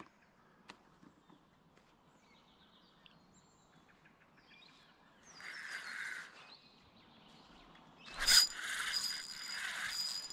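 Fishing reel being wound in short spells, a whirr with a thin high whine, as a hooked flathead is brought in. A sharp knock comes a little after eight seconds in. A few faint bird chirps are heard about three seconds in.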